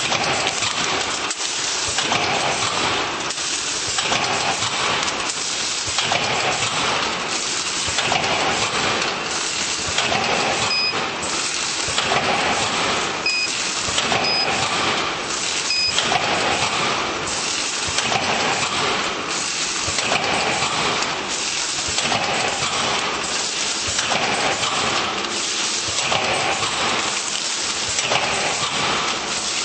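Vertical form-fill-seal bagging machine running, a dense mechanical clatter and hiss that rises and falls about once a second. A few short beeps come from its touchscreen control panel as it is tapped, a little before halfway.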